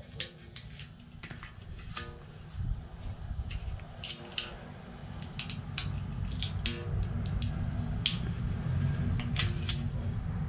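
Sharp, irregular crackles and clicks as a tire repair patch and its backing are handled and pressed onto the inside of a truck tire, over a low rumble that grows louder about halfway through.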